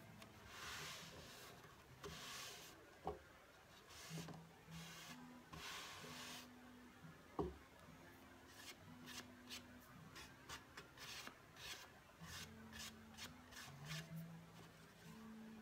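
Hands rubbing and smoothing glued decoupage tissue paper down onto a wooden drawer side: faint swishing strokes, longer ones at first, then a quicker run of short strokes. Two light knocks, about three and seven seconds in.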